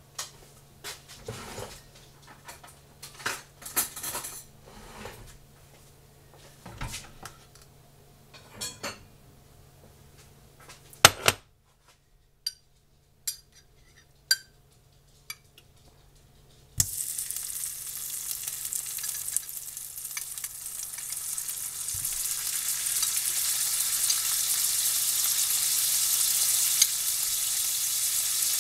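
Clinks and scrapes of a utensil working home-canned sausage patties out of their jar. About two-thirds of the way through, a steady sizzle starts suddenly as the patties fry in a hot nonstick frying pan, and it grows louder toward the end.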